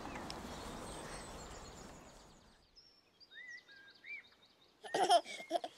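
Outdoor background noise fading away over the first couple of seconds, then a few faint bird chirps, and near the end a baby giggling in short bursts, the loudest sound here.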